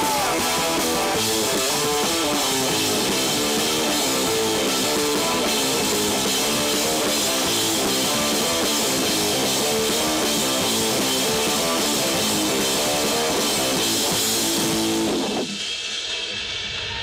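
Live rock band playing electric guitars, bass guitar and drum kit together. The playing stops about fifteen seconds in, leaving a quieter ringing tail.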